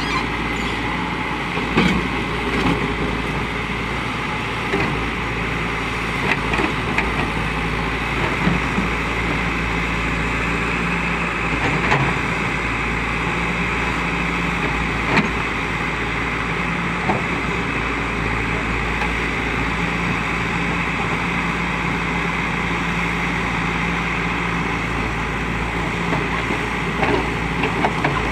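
Backhoe loader's diesel engine running steadily, with occasional sharp clanks and knocks.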